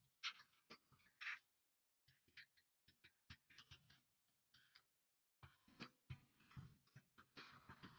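Faint computer keyboard keystrokes: irregular runs of quick clicks as text is typed, broken by two short pauses.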